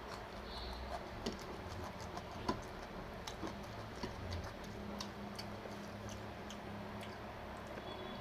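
Eating sounds: a person chewing, with small irregular clicks and smacks from the mouth and food, over a low background hum.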